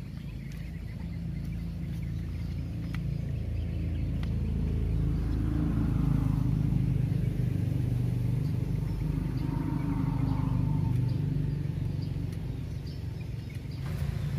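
An engine drones past, building up over the first few seconds, loudest through the middle and fading toward the end.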